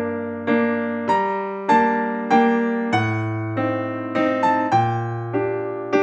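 Background piano music: a gentle melody of single notes struck about every half second over held low notes.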